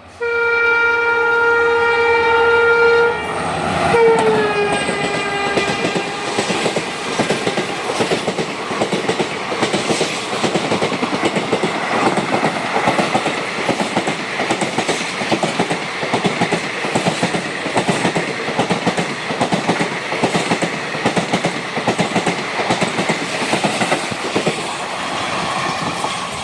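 A diesel locomotive's horn sounds one long blast, then a short second blast that drops in pitch as the locomotive passes. Then the express train's coaches run past with a steady clickety-clack of wheels over the rail joints.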